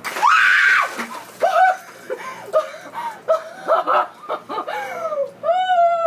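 A bucket of ice water pours over a woman with a splash as she screams, then she lets out a run of short, high gasping shrieks and squeals from the shock of the cold.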